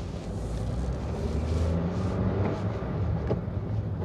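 Honda car driving at road speed, heard from inside the cabin: a steady low rumble of engine and tyre noise, with two faint knocks in the middle.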